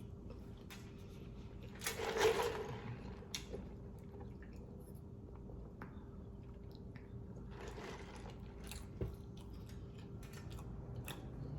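A person chewing a bite of a spicy chicken sandwich: soft, moist chewing and mouth sounds, with a louder bite or chew about two seconds in, over a faint steady hum.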